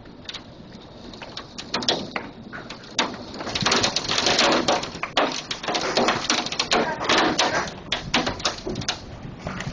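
Hailstones pelting the house and its windows in rapid clattering impacts, sparse at first and turning into a dense, loud clatter about three and a half seconds in.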